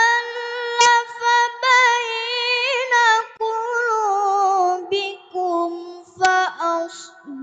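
A young boy's voice reciting the Quran in melodic, ornamented tilawah style: one long high note held with wavering turns, then shorter phrases stepping down in pitch, with brief breaks for breath.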